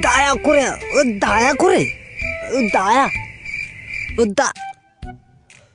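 Steady high cricket chirping under a man's wavering, pitched moans. The moans break off about three seconds in, followed by a couple of short sounds around four seconds.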